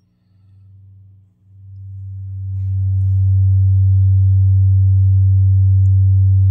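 Harmony H620 guitar amp with no cable plugged in, putting out a low steady hum with overtones. The hum swells as the reverb knob is turned up, rising over about a second and a half and then holding loud. It is a fault noise tied to the reverb setting: louder with more reverb, gone when it is turned down.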